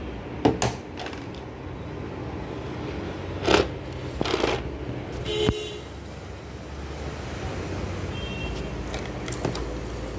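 Hard plastic projector casing handled and bumped, giving a few sharp knocks, over a steady background hum. A brief toot about five seconds in and a short high two-tone sound a little after eight seconds.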